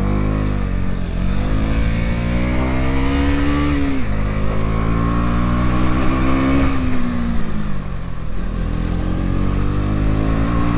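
KTM Duke 390 single-cylinder motorcycle engine under throttle, its pitch climbing and then dropping about four times as it accelerates through the gears and eases off.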